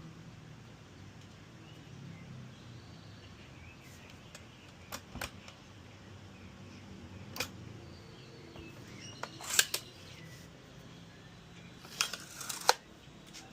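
A low steady hum with scattered sharp clicks and knocks: two about five seconds in, one near seven, a louder cluster near ten seconds, and two more near the end.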